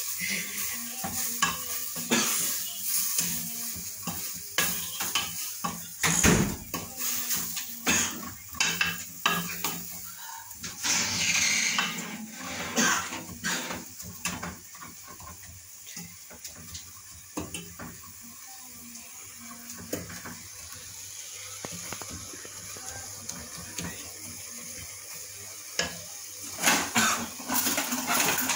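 Wooden spoon stirring in a metal stock pot, knocking and scraping against the pot's sides and bottom. The knocks come thick through the first half, thin out to a quieter stretch, and return as a loud cluster near the end.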